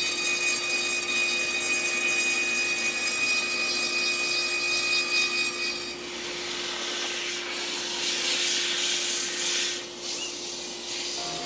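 Table saw running with its blade trimming a laminated plywood drum that a cordless drill spins over it, truing the drum round: a steady whine with a cutting hiss. About six seconds in the whine drops away, leaving a rushing hiss as sandpaper is held against the spinning drum.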